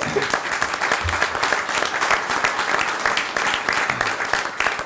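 Audience applauding: dense, steady hand clapping from a room full of people.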